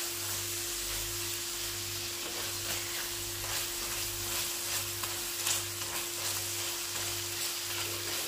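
Onion-tomato masala sizzling in a non-stick pan as a plastic spatula stirs and scrapes through it, with a steady low hum underneath.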